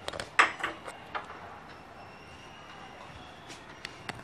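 A few light clicks and taps of kitchen containers being handled, several in the first second or so and a few more near the end.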